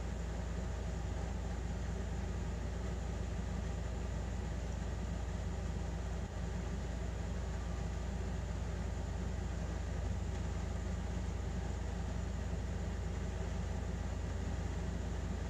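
A steady low hum with a light hiss over it, unchanging except for a brief dip about six seconds in.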